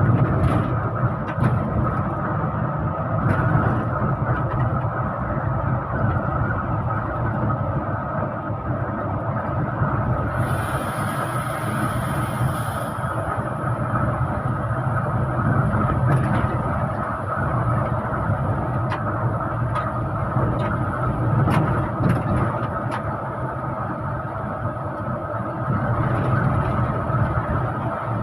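Running bus engine and road noise heard inside the cabin of a moving intercity bus. About ten seconds in, a hiss lasting a couple of seconds rises over it.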